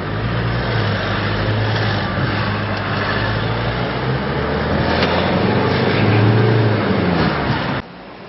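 Car engine and road noise heard from inside a moving car, a steady low hum with slow rises and falls in pitch. Near the end the sound cuts abruptly to a much quieter hum.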